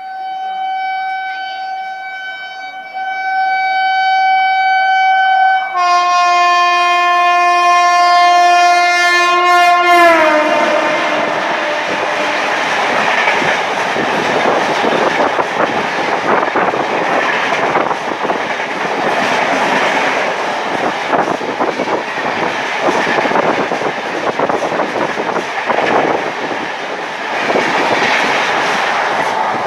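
Electric locomotive of an Indian Railways express sounding a long horn blast as it approaches at speed. The note changes and deepens about six seconds in, then drops in pitch about ten seconds in as the locomotive passes. LHB passenger coaches follow, passing at high speed with their wheels clattering rapidly over the rail joints.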